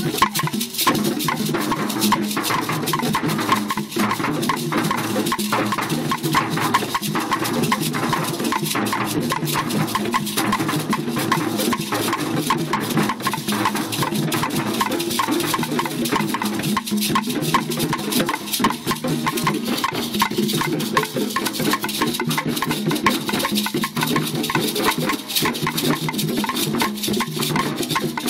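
A group of hand drums played together: tall goblet-shaped drums struck with the hands, along with frame drums, in a continuous, dense rhythm without a break.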